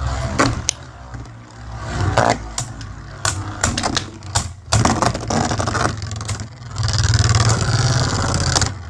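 Beyblade Burst spinning tops whirring and colliding in a plastic stadium. Repeated sharp clacks and scraping sit over a steady low hum, which grows denser and louder about seven seconds in.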